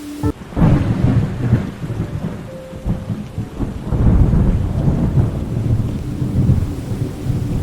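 Thunder rumbling over steady rain. The rumble breaks in suddenly about half a second in, eases, then swells again about four seconds in. A faint sustained music tone hums underneath.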